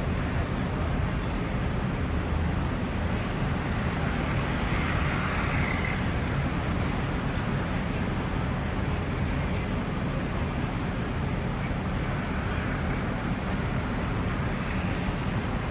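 Steady outdoor crowd-and-city ambience: a low, even rumble with a faint murmur of voices and no firework bangs.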